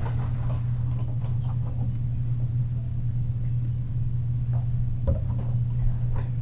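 A steady low hum, with faint crinkles and clicks of a plastic water bottle being handled, drunk from and capped.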